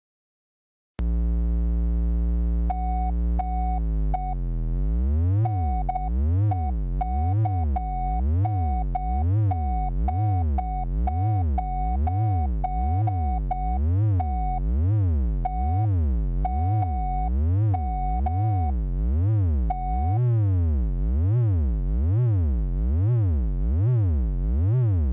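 Synthesizer sound starting about a second in: a low buzzy drone that, from about four seconds on, sweeps up and down in pitch over and over, a little faster than once a second, with short repeated beeps laid over it.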